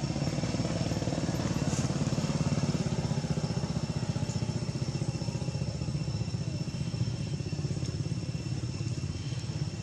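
A small engine running steadily, with a rapid even low pulsing and no rise or fall in pitch.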